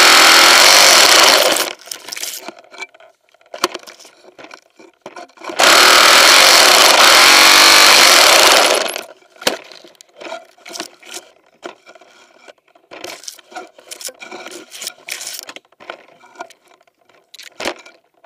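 A saw cutting through a tree branch in two loud runs of strokes, each a few seconds long, with scattered knocks and rubbing of the tool against wood in between and afterwards.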